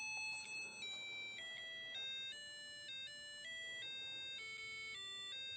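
A color-changing mood clock plays its built-in electronic melody through its small speaker: a simple beeping tune of single notes, two or three a second. This is a sign the clock has just powered up on its batteries.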